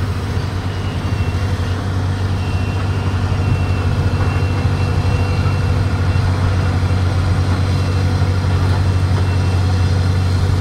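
Caterpillar crawler bulldozer's diesel engine running steadily under load as the blade pushes a pile of dirt and rock, growing a little louder as the machine comes closer. A thin high whine sits over the engine for several seconds.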